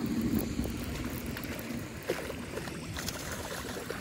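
Wind rumbling on the microphone while a hooked fish is reeled in, with a few light ticks and the fish splashing at the surface in the shallows near the end.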